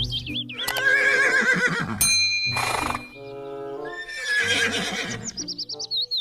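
Horse neighing: several whinnies whose pitch quavers up and down, ending in a fast, high trill. A brief ringing tone sounds about two seconds in.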